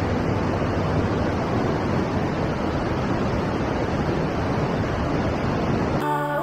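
Steady, even rush of a mountain stream running white over rocks close by. Music comes in suddenly near the end.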